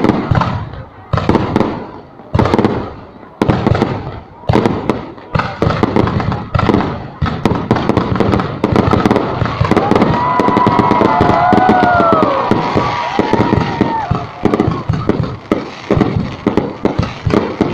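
Fireworks going off loudly, with a bang about once a second at first. About halfway through they run together into a dense stretch of crackling bangs with a few short whistling glides, then separate bangs again near the end.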